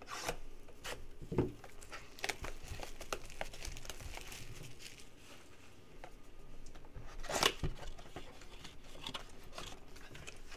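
Plastic wrap being torn and crinkled off a cardboard trading-card blaster box, with irregular crackling throughout and a louder burst of it about seven seconds in, then the cardboard box being handled and its top flap opened near the end.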